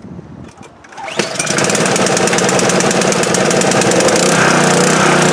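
Subaru pressure washer engine catching about a second in and then running steadily and loudly, its freshly cleaned carburetor back in service.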